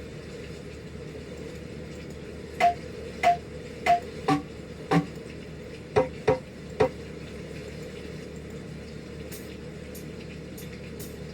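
Eight short drum-sample hits triggered one at a time at an uneven pace, each at a different pitch, over a steady electrical hum. The hits come between about a third and two thirds of the way through.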